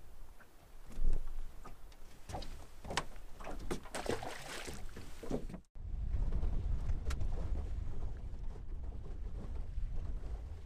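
Scattered light clicks and knocks, then, after a sudden cut about five and a half seconds in, a steady low rumble of a fishing boat running across the lake.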